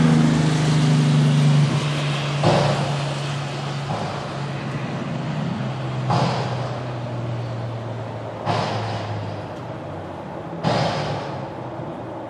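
Mack garbage truck's diesel engine running, its drone loudest at first and fading away, with four sudden sharp noises a few seconds apart, each dying away over about a second.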